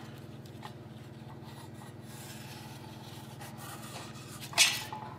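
Sharpie marker tip rubbing and scratching across sheet brass while tracing around a paper template, over a steady low hum. A brief, louder scratchy sound comes about four and a half seconds in.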